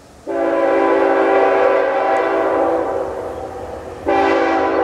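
Locomotive air horn, a Nathan Airchime K5HL five-chime horn, sounding for the level crossing: one long blast starting just after the start and fading after about two and a half seconds, then a second blast starting about four seconds in.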